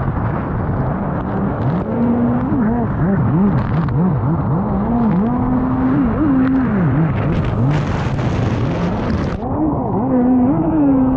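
Race stand-up jet ski powered by a Kawasaki SX-R 160 four-cylinder four-stroke engine, running flat out with its engine note swooping up and down quickly, over a steady rush of water and spray. A brighter hiss of spray comes from about seven and a half to nine and a half seconds in.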